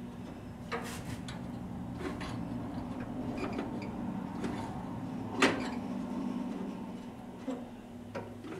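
Small metal clicks and scrapes of a 1949 Chevy 3100's parking-brake clevis being turned in by hand on its threaded rod to shorten the linkage, with one sharper click about five and a half seconds in. A steady low hum runs underneath.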